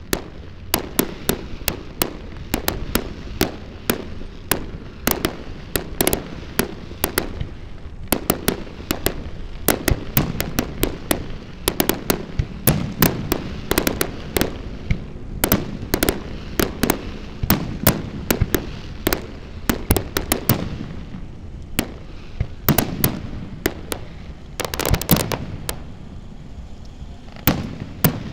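Fireworks display: aerial shells launching and bursting in a rapid, irregular string of bangs and pops, several a second, with a dense cluster near the end.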